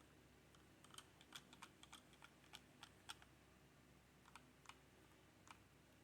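Faint keystrokes on a HyperX Alloy Origins Core mechanical keyboard with red switches: a quick run of key presses in the first few seconds, then a few scattered ones.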